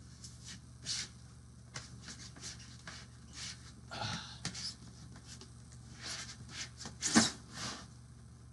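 Statue packaging being handled: scattered rustles, scrapes and soft knocks of foam, fabric and cardboard, with a sharper, louder burst about seven seconds in.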